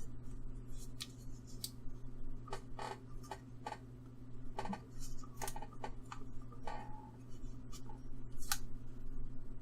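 Irregular small clicks and taps from handling paint, brush and paper, over a steady low hum.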